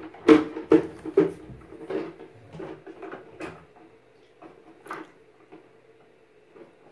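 A baby's hand slapping the side of a plastic laundry basket sitting in a bathtub: hollow knocks, about two a second at first, then slower, fainter taps that die away after about four seconds.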